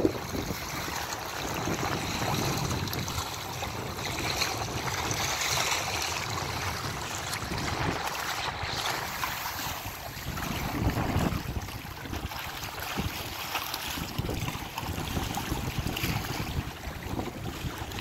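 Wind buffeting the microphone in gusts, over the steady wash of choppy river water against a rocky shore.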